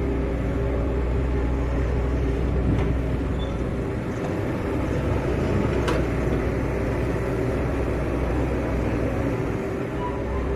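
Excavator's diesel engine running steadily under work, with two faint knocks along the way.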